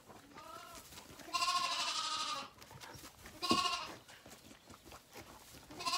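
Zwartbles lambs bleating for their bottle: a faint bleat, then a long quavering one about a second and a half in, a short one a couple of seconds later, and another starting near the end.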